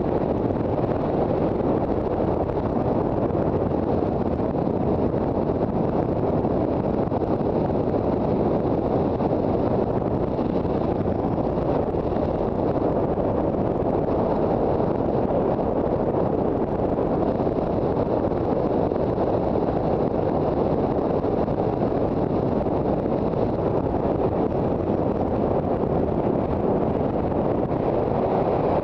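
Steady wind noise on the microphone of a Honda CB400 Super Bold'or motorcycle under way, with road and riding noise beneath and no distinct engine note.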